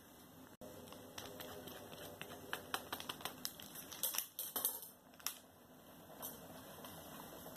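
Cheese being grated on a flat metal hand grater: a run of irregular scratchy clicks and taps, thickest and loudest about four seconds in, then only a few scattered taps.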